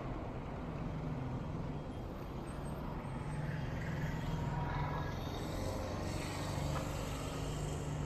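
Street traffic: a vehicle engine running with a steady low drone under a general hum of road noise.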